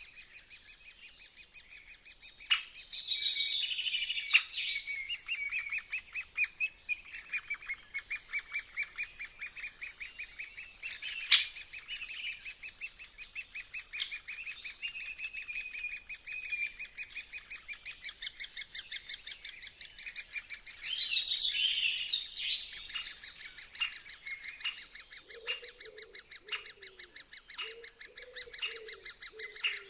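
Woodpeckers calling at a nest hole in a tree trunk: a fast, steady run of short, high chattering notes, with louder sweeping calls rising over it about three seconds in and again past twenty seconds. A lower-pitched call repeats near the end.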